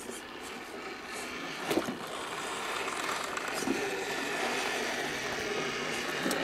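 Electric drive motor and gearbox of an RC4WD Beast 6x6 scale crawler whining steadily under load as its tyres scrape and climb over a log in mud, with a knock a little under two seconds in and another near four seconds.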